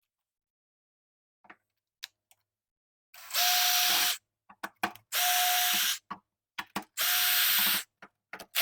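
Power screwdriver backing out the Phillips screws that hold a roof panel's weatherstrip retainer: four short runs of steady whine, each about a second long, the last starting near the end. Small clicks come before and between the runs.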